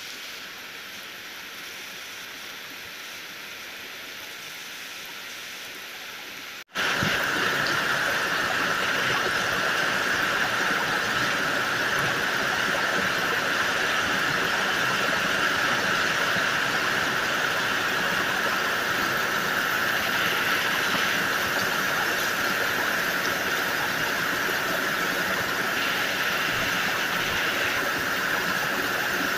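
Heavy monsoon rain falling steadily on trees and palms. About seven seconds in it cuts off for an instant and comes back much louder and nearer.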